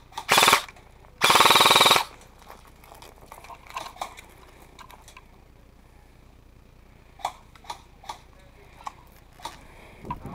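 Airsoft rifle firing close to the microphone on full auto: a short burst, then a longer burst of just under a second. Faint scattered clicks and ticks follow.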